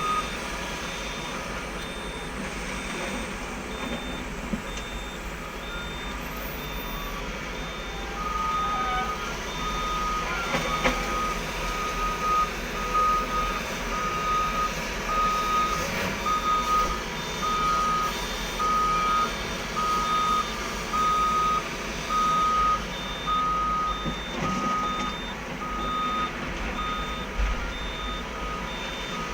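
Two vehicle reversing alarms beeping at a steady rhythm over the steady noise of heavy diesel machinery. A fainter, higher-pitched alarm beeps throughout, and a louder, lower one starts about eight seconds in.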